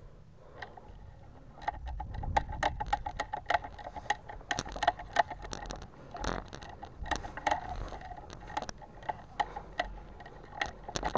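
Leaves and twigs rustling, scraping and snapping against the player's body and camera as he pushes slowly through dense brush. From about two seconds in it becomes a quick, uneven run of crackles.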